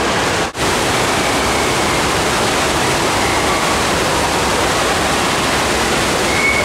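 Steady loud rush of water pumped over an indoor surf simulator, a continuous churning wash, broken by a brief dropout about half a second in.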